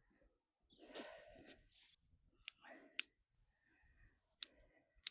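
Dry stock seed heads rustling about a second in, then four short sharp clicks, the loudest about three seconds in: the snips and pops of seed being gathered by hand.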